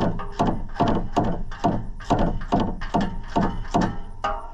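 A ratchet wrench tightening the nut of a 4-inch exhaust muffler clamp: a quick run of sharp clicks, about four a second, each ringing briefly, stopping near the end.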